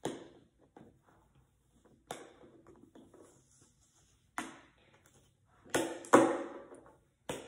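Cardboard slime-kit box being opened by hand: a handful of sharp crackles and snaps of the flap and packaging, the loudest two close together about six seconds in.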